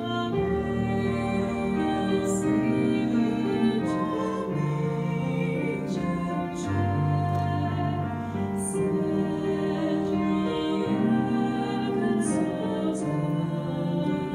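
A young woman and a young man singing a slow Christmas song into microphones, over instrumental accompaniment whose bass notes change every second or two.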